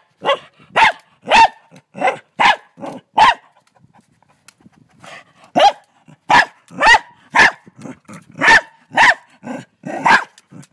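A frightened dog barking repeatedly at a huge mantis, about two barks a second. It pauses for about two seconds partway through, then starts barking again.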